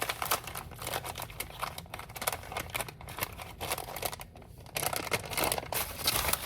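Packaging being handled: rapid, irregular crinkling and clicking as a part is put back into its box, with a brief pause about four seconds in.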